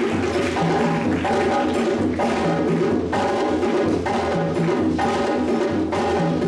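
West African drum ensemble of djembes and dunun bass drums playing a Malinké dance rhythm, a steady repeating pattern of low drum tones under sharp hand-drum slaps.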